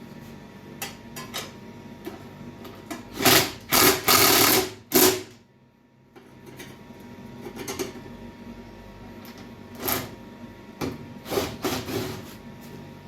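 Hand tools and metal parts clinking and knocking on a snowblower's bolted housing, with a loud run of rapid mechanical clatter a few seconds in that stops suddenly, then more scattered knocks.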